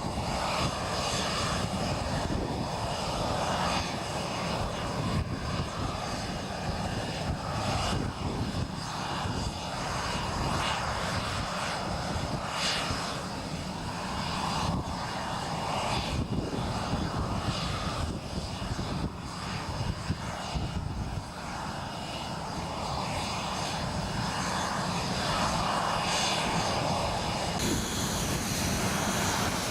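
Tornado GR4 twin RB199 turbofan jet engines running on the ground: a steady rush of engine noise with high, thin whining tones running through it.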